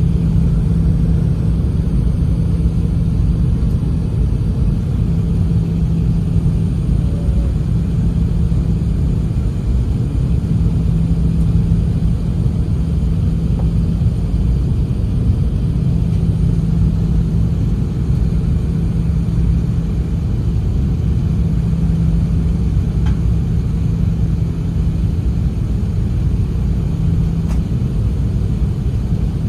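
Cabin noise of an Airbus A380 airliner in flight shortly after takeoff: the four turbofan engines and rushing airflow as a steady low rumble, with a steady hum underneath that drops away near the end.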